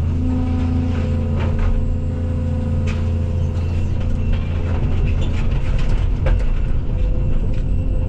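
Case CX220E excavator's diesel engine running steadily, with scattered sharp knocks and cracks from the barn timbers it is working.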